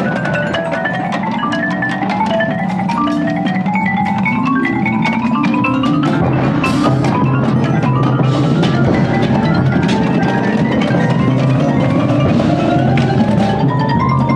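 Several marimbas played together with mallets in fast runs of notes that sweep up and down in pitch: a front ensemble's warm-up exercise.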